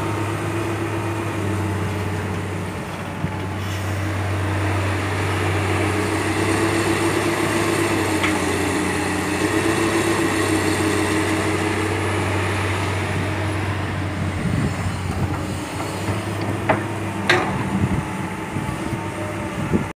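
Komatsu hydraulic excavator's diesel engine running steadily under load as it digs and swings, its pitch wavering with the work. A couple of sharp knocks come near the end.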